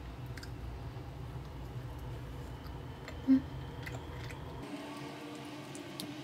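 A person chewing bread, with small wet mouth clicks, over a low steady hum that drops out about two-thirds of the way through. A single short low blip comes about three seconds in.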